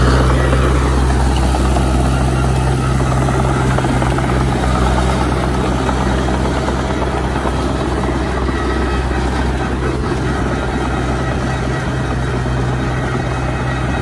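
Small crawler bulldozer's diesel engine running steadily as it pushes soil, a deep even drone with noise spread above it. It is slightly louder at the very start, then holds level.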